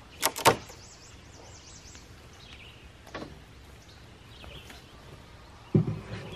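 Long wooden rafter boards knocking as one is pulled off a lumber stack: two sharp wooden knocks just after the start, a fainter knock about three seconds in, and a dull thud near the end. Birds chirp faintly in the background.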